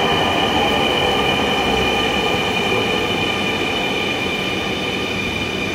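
Dhaka Metro Rail MRT Line 6 train at the platform: a steady high-pitched whine over a rumble, slowly getting quieter.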